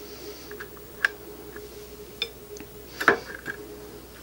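A few light metallic clicks and taps, the loudest about three seconds in, as a 6.5 Grendel barrel with its gas tube is guided into an AR-15 upper receiver; a faint steady hum runs underneath.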